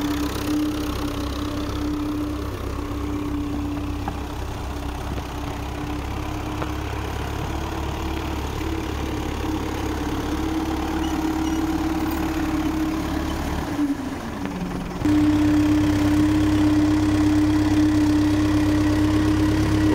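Old diesel tractor engine running steadily under load as it pulls a disc implement through rice stubble. Its note dips and slides down briefly about 14 seconds in, then the engine is louder and closer for the rest.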